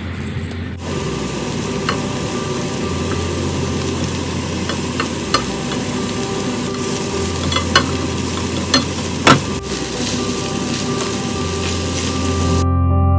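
Food sizzling as it is stir-fried in a pan, with a few sharp clicks of a utensil against the pan. Soft music runs underneath, and near the end the sizzling stops and the music comes forward.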